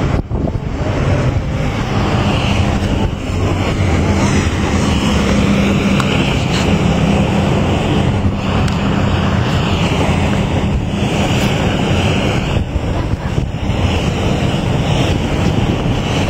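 Wind buffeting the microphone on the open deck of a ship, over a steady low hum.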